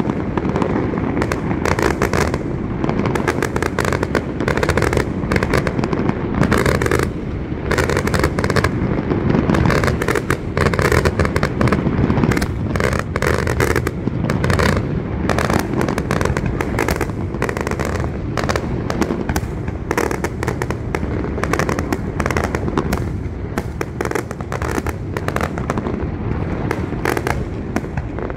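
Aerial fireworks display: shells bursting and crackling in a rapid, unbroken series of bangs, several a second, easing slightly in the last few seconds.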